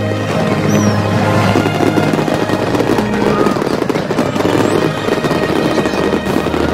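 Large fireworks display: a dense, continuous crackling and popping of many shell bursts, with a few short whistles, over a background of music.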